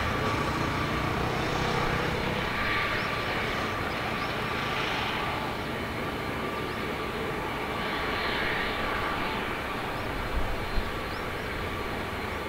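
Distant jet airliner on final approach: the CFM56 turbofan engines of a Boeing 737-800, a steady rumble with a faint steady whine. Two short knocks a little after ten seconds.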